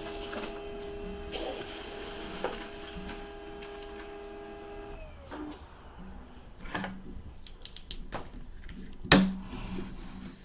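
A steady hum of several held tones that sags slightly in pitch and stops about five seconds in. It is followed by a few scattered sharp clicks and knocks, the loudest about nine seconds in.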